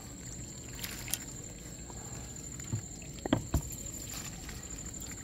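Faint small splashes and water sloshing as a mesh fish trap packed with mudskippers is handled in shallow water, with a few soft knocks about three to three and a half seconds in.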